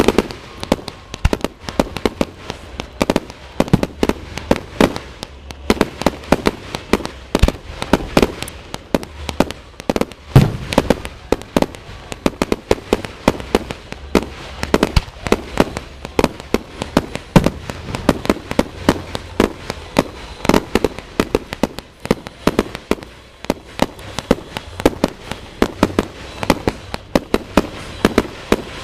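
Fireworks display: a rapid, irregular barrage of shell bursts and bangs, several a second, with louder booms now and then, the loudest about ten seconds in.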